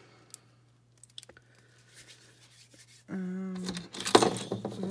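Light clicks of fingers working a lump of polymer clay, then a loud rattling clatter near the end as a plastic ruler and crochet hooks are moved across a table.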